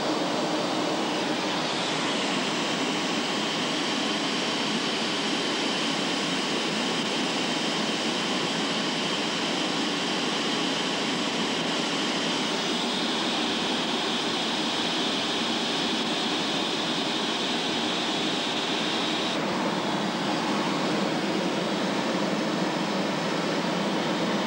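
Steady jet engine and airflow noise heard inside the cockpit of a two-seat jet in flight, with a high whine that shifts in pitch a few times.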